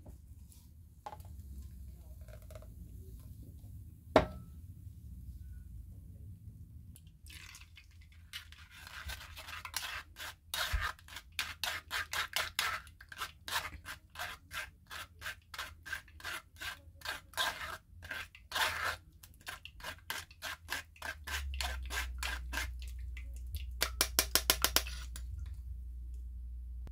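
Metal spoon scraping and pressing wet pomegranate pulp through a fine-mesh metal sieve over a stainless steel bowl, in rhythmic strokes of about three a second. A sharp knock about four seconds in, and a faster run of strokes near the end.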